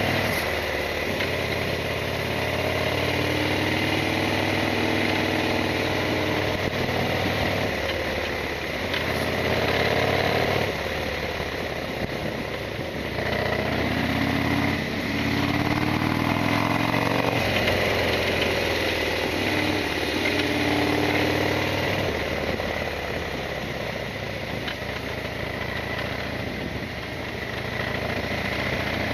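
Harley-Davidson Sportster XL1200's air-cooled V-twin engine running under way, its pitch rising and falling several times as it accelerates and eases off.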